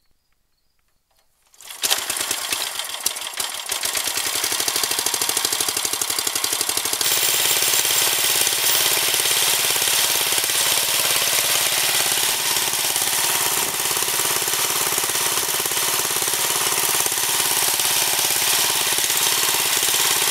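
An older Briggs & Stratton single-cylinder engine, which the owner guesses at 8 hp, fires up a little under two seconds in. It then runs steadily with a rapid, even firing beat.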